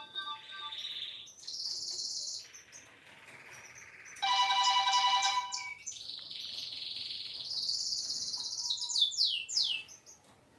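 A Nokia 3220 ringtone made of chirping, bird-like electronic sounds, with a short run of steady tones a little before the middle and several quick falling sweeps near the end.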